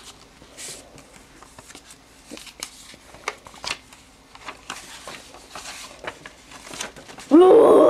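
Light handling noise, scattered rustles and clicks of hands moving a small card or paper, then near the end a short, loud, voice-like cry that rises and falls in pitch.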